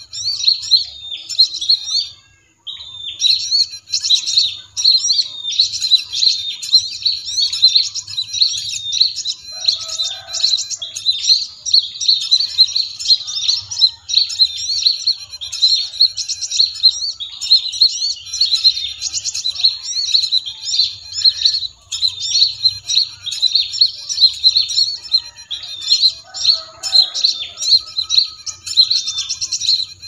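Dense, noisy chatter of many small birds, high-pitched chirps and trills overlapping without pause, played as a bird-lure recording to draw small birds to lime sticks. The sound cuts out completely for about half a second around two seconds in, then resumes.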